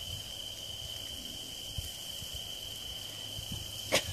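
Steady, high-pitched trill of crickets, with a single sharp click near the end.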